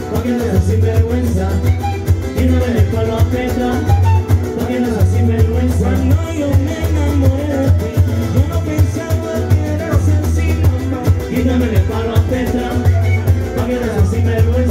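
Latin dance music with a steady beat and heavy bass.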